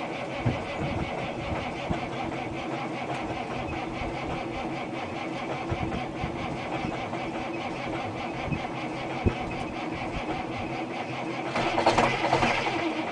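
A steady engine sound, then about eleven and a half seconds in a Freightliner's Detroit Diesel Series 60 fires up in a cold start and its noise jumps up sharply.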